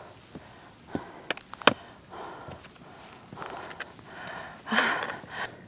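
A person breathing and sniffing close to the microphone, several soft breaths with the loudest near the end, after a few sharp clicks in the first two seconds.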